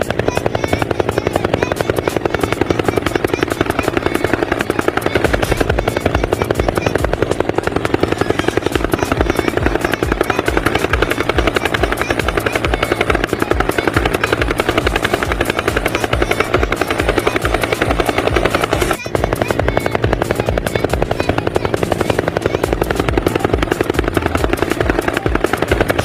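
A steady, very rapid helicopter-like chopping that runs throughout. A low thump pulses several times a second from about five seconds in, and the sound breaks off for a moment about two-thirds of the way through.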